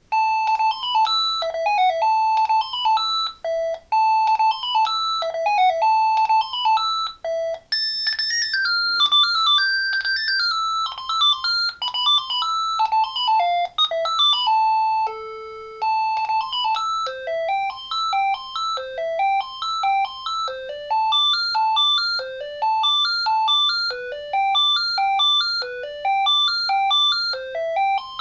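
Panasonic KX-TG5439 cordless phone playing its built-in electronic ringtone melodies one after another. A short tune repeats twice, then a different melody plays, then a brief low note, then a quick rising phrase repeats over and over.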